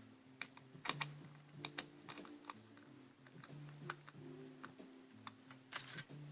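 Irregular sharp clicks and taps of small hard parts being handled, most likely the pieces and hardware of a Nielsen sectional metal picture frame during assembly. Quiet background music with held notes runs underneath.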